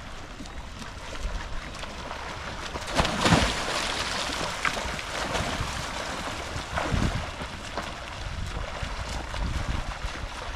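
Water splashing: a louder splash about three seconds in as a swimmer dives off a pontoon into a lake, then the splashing of freestyle swimmers' strokes, with wind rumbling on the microphone.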